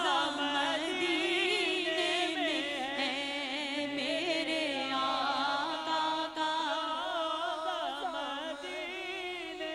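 A naat, an Urdu devotional song in praise of the Prophet, sung into a microphone: a woman's voice holds long, wavering, ornamented notes.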